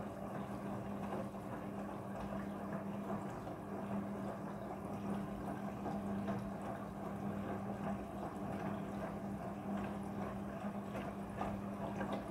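Midea front-loading washing machine in its prewash, water running and splashing inside over a steady electric hum.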